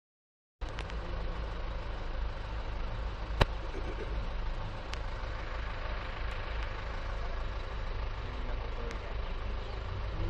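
Safari jeep engine running with a steady low rumble, cutting in abruptly about half a second in. A single sharp click a little over three seconds in is the loudest moment.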